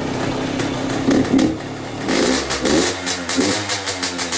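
Freshly rebuilt Yamaha YZ85's 85 cc two-stroke engine running, revved in several quick blips during the first three seconds, then settling into a pulsing idle near the end.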